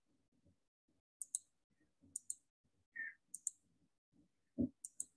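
Computer mouse button clicked four times, each a quick press-and-release pair, about a second apart, as points are picked for a dimension. A single low thump comes near the end.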